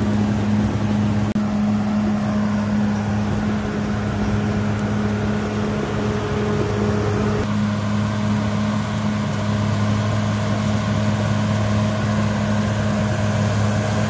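CAT D6R XL bulldozer's diesel engine running at a steady pitch while the dozer pushes soil with its blade.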